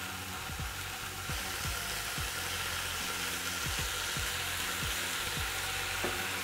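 Bacon slices sizzling steadily as they fry in oil in a non-stick pan, with low background music beneath.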